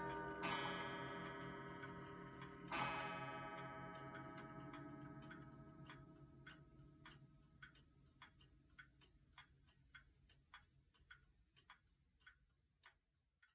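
Kienzle spring-driven pendulum wall clock striking twice, about half a second in and again near three seconds, each blow ringing on and slowly dying away. The pendulum ticks evenly under it, a little under two ticks a second, and the sound fades out towards the end.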